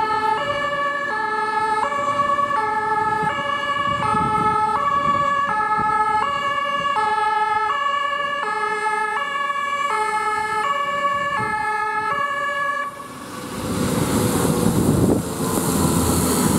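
German two-tone fire brigade siren (Martinshorn) on a rescue truck, alternating between two pitches, each held for under a second, until it stops about thirteen seconds in. The truck then passes close, its engine and tyres rushing and hissing on the rain-soaked road.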